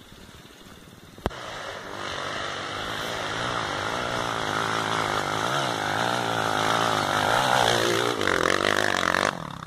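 Dirt bike engine revving, its pitch rising and falling with the throttle, growing steadily louder as the bike approaches until it passes close by near the end, then dropping away suddenly. A single sharp click just before the engine sound rises.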